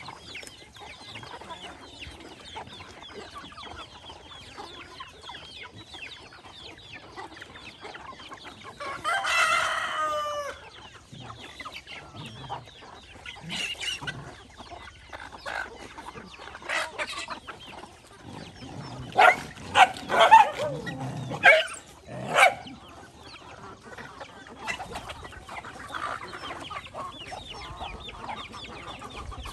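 Chickens clucking steadily, with a rooster crowing once about nine seconds in. Near the middle, a few loud, sharp noises stand out over the clucking.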